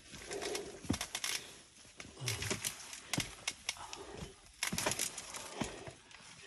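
Climbing a steep aluminium ladder with a rope handline: irregular knocks and clicks of boots and hands on the metal rungs and rope, with rustling between them.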